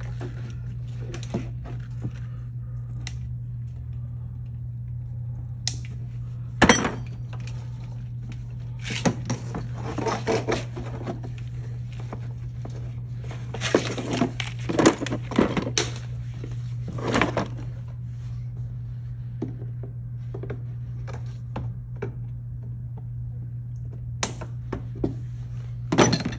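Hand-work noises from removing a golf cart's onboard computer: a zip tie snipped with cutters, then scattered clicks, knocks and rattles as the box is worked loose from its mounting bracket and pulled out. A steady low hum runs underneath.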